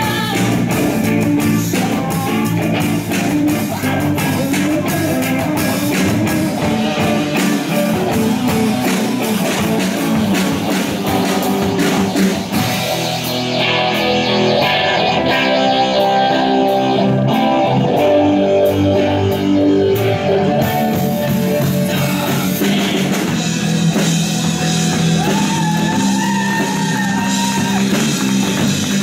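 Live rock band playing, with electric guitars, bass guitar and a drum kit, and a girl singing lead.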